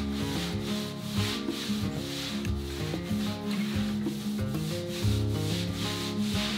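A damp grout sponge scrubbing across ceramic penny tile in repeated back-and-forth strokes, wiping excess grout off the freshly grouted tile after it has begun to set.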